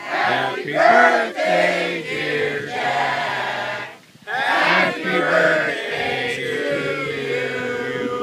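A group of adults and children singing together, likely a birthday song. There is a short break about four seconds in, then a long held note near the end.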